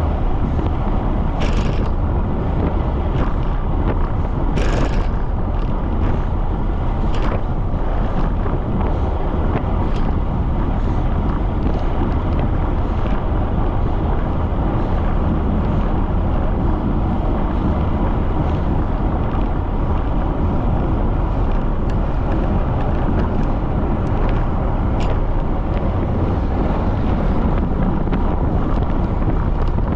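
Strong wind buffeting the microphone of a bicycle-mounted camera moving at speed, a steady low rumble, with a few brief clicks in the first several seconds.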